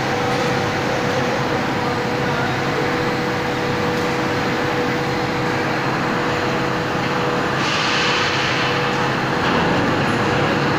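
Steady factory machinery noise with a constant hum, and a brighter hiss joining for a couple of seconds about three-quarters of the way through.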